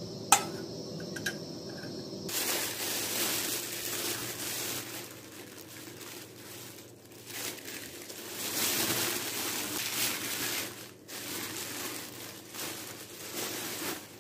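A metal spoon clinks once against a metal pot, then a thin plastic bag crinkles and rustles without a break from about two seconds in to the end as it is pulled off a bowl of risen dough.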